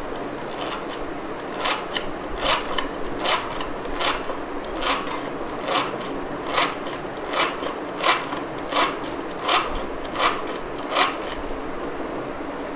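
Hand-operated metal whisk beating egg, powdered sugar and oil in a glass bowl. Its loops strike and scrape the glass in a steady rhythm of a little over one stroke a second, stopping shortly before the end.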